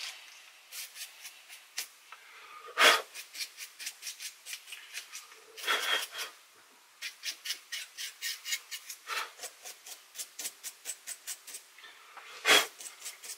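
Small clicks from a screwdriver working on a cassette recorder's tape mechanism, coming about three a second, broken four times by a louder rasping noise.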